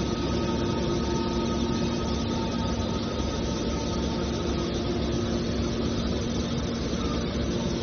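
Small hydraulic aluminum can baler's motor and pump running with a steady hum and several constant tones.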